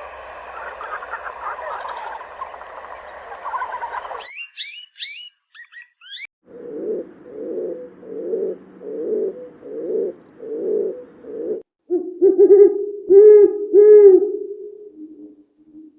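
A run of different animal calls, mostly birds. First a dense noisy chorus for about four seconds, then a few quick high chirps. Then a series of low pulsing calls about once a second, and three loud low calls near the end.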